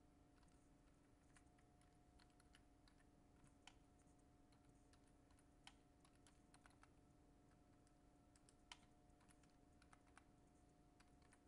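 Faint computer keyboard typing: scattered, irregular keystroke clicks, a few a little louder than the rest, over a faint steady hum.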